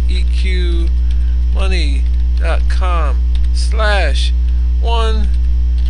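Loud, steady electrical mains hum on the recording: a constant low drone with fainter steady overtones above it. A man's voice speaks over it in short phrases.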